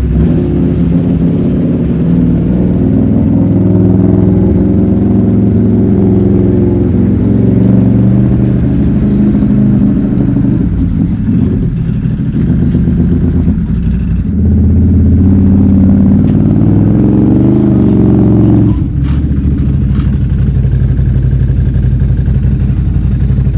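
Motorcycle engine running, its pitch shifting as the throttle is worked; the engine note climbs briefly about 17 seconds in and drops back abruptly near 19 seconds.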